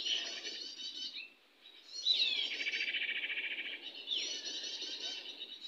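Small songbird calling: three runs of fast, high chattering, separated by short pauses, the middle one opening with a downward slur.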